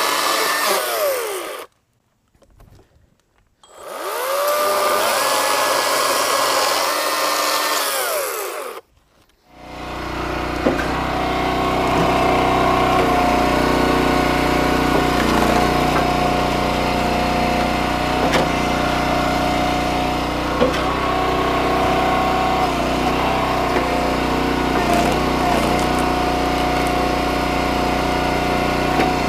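Atlas 40V brushless battery chainsaw cutting through pallet boards in two bursts, its whine dropping in pitch under load. It stops dead to near silence each time the trigger is let off. From about ten seconds in, the small gas engine of a hydraulic log splitter runs steadily, with a few sharp knocks.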